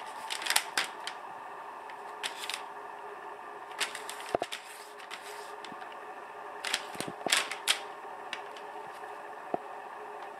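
A cat's claws scratching and crinkling a sheet of paper in short crackly bursts with pauses between them, over a faint steady hum.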